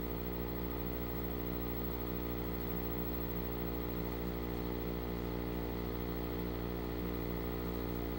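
Steady electrical mains hum from a powered-up vintage colour television set: a low, unbroken drone made of a stack of even overtones, with a faint hiss above it.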